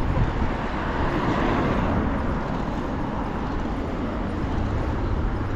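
Steady city street traffic noise heard from a moving bicycle, with a low rumble of wind on the microphone. The traffic swells slightly about a second in as vehicles pass.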